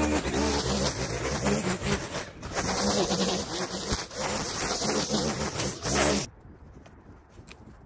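A small engine running with a wavering pitch, which cuts off abruptly about six seconds in, leaving only faint background sound.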